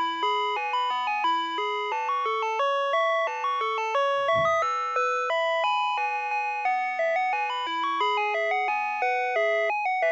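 Ice cream truck's electronic 'Digital 2' music box playing its chiming tune: a steady melody of bell-like notes, a few a second, each struck and then fading.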